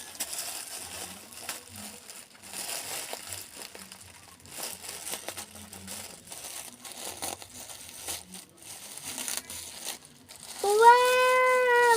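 Parcel packaging being handled and opened, crinkling and rustling in irregular bursts. Near the end a child lets out a long, loud, high-pitched "wow" that drops in pitch as it ends.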